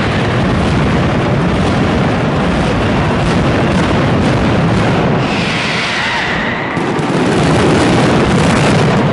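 Mascletà firecrackers going off in a dense, continuous barrage of booms and cracks with no gaps between them, the closing 'terremoto' of a daytime Fallas firework display.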